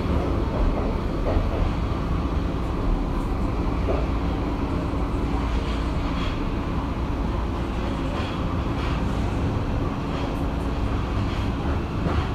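Tokyo Metro Marunouchi Line 2000-series subway train running: a steady rumble with a steady low hum and a few faint clicks.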